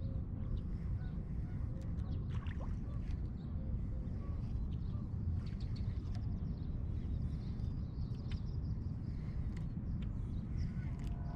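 Lakeside ambience: a steady low rumble with faint bird chirps and a few small clicks over it.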